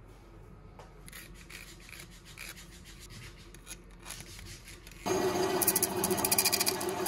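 Faint scratching of a pencil marking the edges of thin laminated wood strips. About five seconds in, a much louder rasping of wood being filed or sawn starts up with rapid, even strokes.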